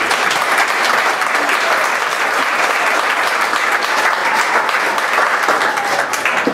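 Audience applauding, a dense, steady clapping that stops near the end.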